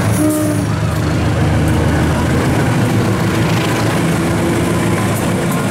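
CC 206 diesel-electric locomotive passing close by, its diesel engine running with a loud, steady low rumble.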